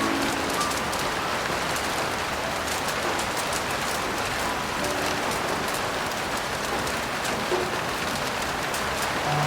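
Heavy rain falling steadily, a dense even hiss with many fine drop ticks through it.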